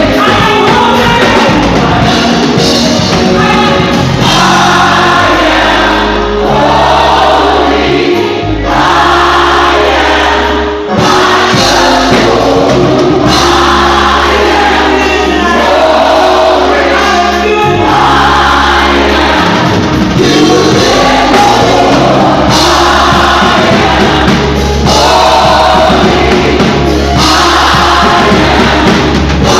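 Live gospel music: a choir singing with a band, over a strong steady bass line.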